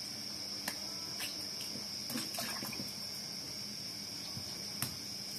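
Crickets trilling steadily, with sharp clicks and scrapes of a knife peeling and cutting cassava: one click under a second in, a run of small scrapes a couple of seconds in, and another sharp click near the end.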